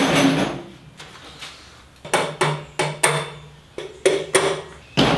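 A loud bang, then about ten sharp knocks in quick succession, each followed by a short metallic ring. They come from hands-on work at the chicken plucker's stainless-steel drum and steel stand.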